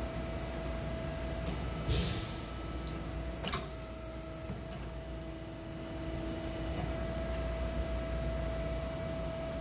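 Hydraulic sheet-metal hardware-insertion press (PEMSERTER) cycling its ram onto a 3D-printed plastic louver forming tool to form a louver in 18-gauge stainless steel sheet. A steady hum runs throughout, with a few sharp clicks and a short hiss about two seconds in, then a lower tone for several seconds.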